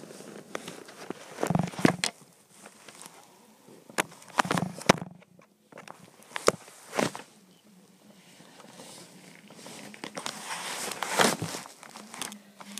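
A phone handled and rubbed close to its microphone: rustling and scraping with irregular sharp knocks and a few dull thumps.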